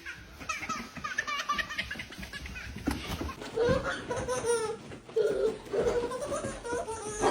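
A young child laughing in a string of short giggles.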